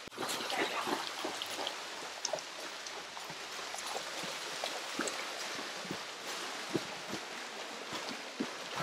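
Horses wading through a shallow, flowing creek: water splashing around their legs over the steady rush of the stream, with many scattered sharp splashes.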